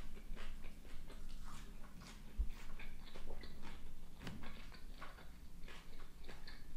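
Close-miked chewing of a mouthful of food with the lips closed: an irregular run of small wet mouth clicks and smacks. A soft low bump comes about two and a half seconds in.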